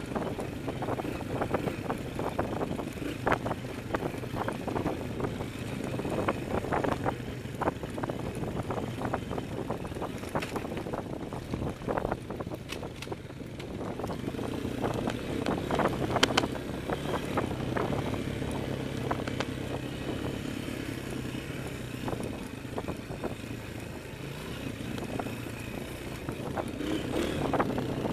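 Dirt bike engine running at low, varying throttle over a rocky trail, with frequent knocks and rattles as the bike hits rocks and roots.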